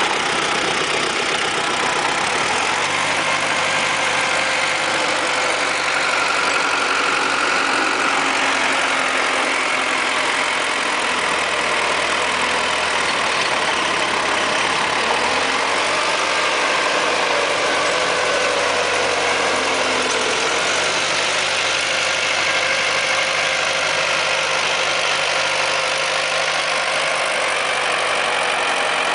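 Tractor engine running steadily while driving a rotary tiller through the soil, its note dipping and recovering a few times as the load changes.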